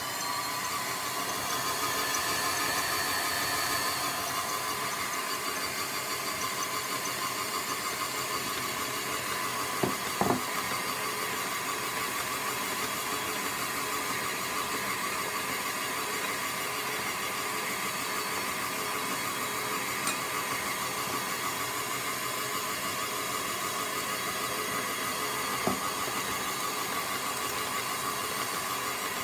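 1979 Kenwood Chef A901E stand mixer running on speed 1, its motor giving a steady whine as the flexi beater works through cake batter. A few brief knocks sound over it.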